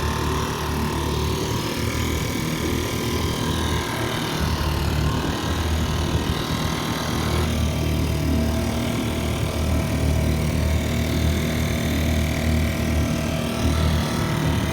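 Dinghy's outboard motor running steadily under way, with a low rumble.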